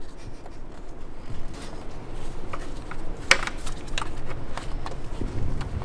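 A steel Allen wrench clicking and scraping in the 5 mm hex bolt of a BMW M54 camshaft position sensor as the bolt is worked loose, with a sharper click a little past halfway.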